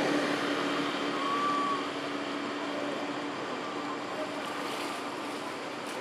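Steady engine hum, slowly fading, with a short high tone about a second in.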